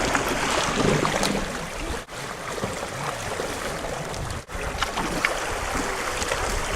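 Steady rush of water and wind noise around a dragon boat out on the water, broken by brief dropouts about every two seconds.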